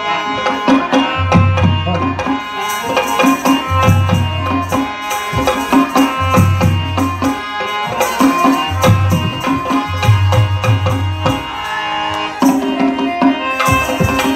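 Indian folk dance music with hand drums and a melody line: quick drum strokes over a deep low beat that comes about every two and a half seconds.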